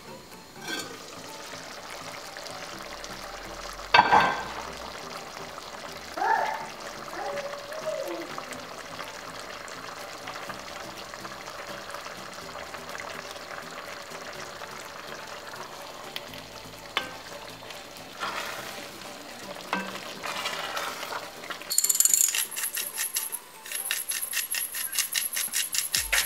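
Pot of rice porridge bubbling at a steady simmer, with a single sharp clank about four seconds in as the lid is handled. Near the end, a fast, even run of clicks from a pepper grinder.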